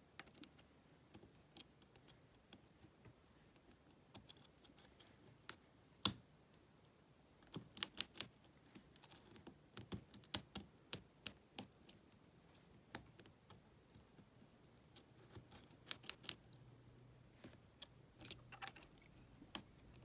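Irregular small metallic clicks and ticks of a hook pick working the pins of a Lockwood 120N brass padlock under a tension wrench, with the loudest click about six seconds in.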